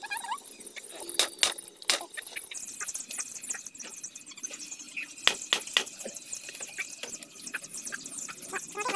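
A large knife chopping through a red snapper head on a wooden block: sharp knocks, three in quick succession about a second in and three more about five seconds in, with lighter knocks between.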